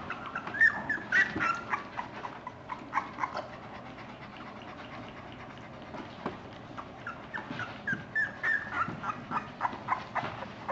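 A litter of very young puppies squeaking and whimpering in short high chirps as they crawl about seeking their mother. The squeaks come in two bouts with a quieter stretch between them.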